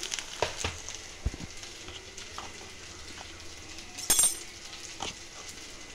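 Steel spatula stirring and mashing spiced boiled potato in a hot frying pan: soft scraping and a few knocks against the pan over a faint sizzle, with a bright metallic clink about four seconds in.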